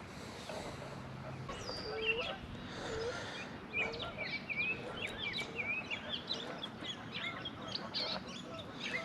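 Birds calling: a chatter of many short chirps that grows dense about four seconds in, with a few lower calls in the first few seconds.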